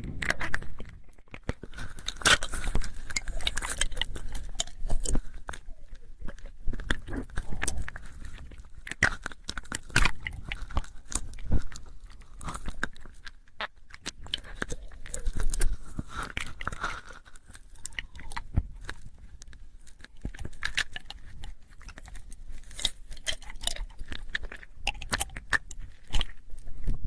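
Close-up ASMR mouth sounds: a dense, irregular run of small clicks, in clusters with brief quieter gaps.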